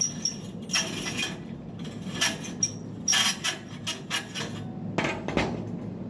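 Irregular metal knocks and clinks as a twisted steel tube and its twisting fixture are handled. There are about a dozen knocks, a few of them with a brief high ring.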